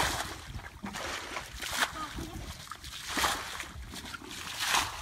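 Muddy water splashing and sloshing as a plastic bucket scoops it from a shallow ditch and flings it out, about four splashes roughly a second and a half apart: a pool being bailed out by hand.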